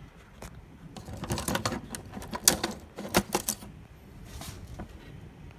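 Irregular plastic clicks and knocks from hands handling the scanner's small drive motor and gear assembly in its plastic housing. They start about a second in, with two sharper clacks near the middle, and stop about two-thirds of the way through.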